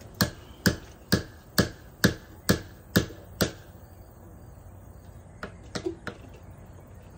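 A hand tool striking the wood of a tree stump: eight sharp knocks about two a second, then a pause and three fainter knocks near the end.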